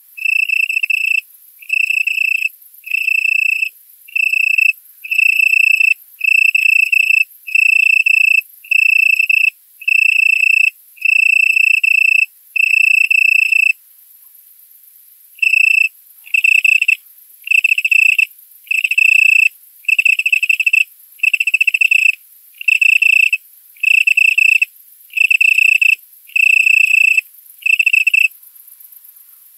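Male Italian tree cricket (Oecanthus pellucens) stridulating its calling song to attract a female: a clear, high, musical trill broken into notes a little under a second long, repeated about once a second. It pauses briefly just before halfway and stops shortly before the end.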